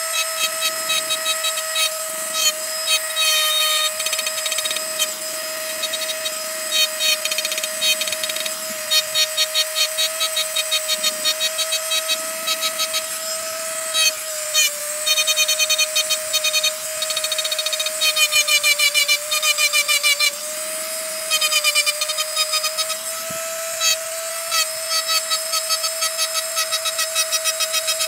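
Handheld electric rotary engraving tool with a small ball-tipped bit running with a steady whine as it cuts lines into a stone slab. The bit scrapes and chatters against the stone in quick repeated strokes, and the pitch dips slightly when it bears in.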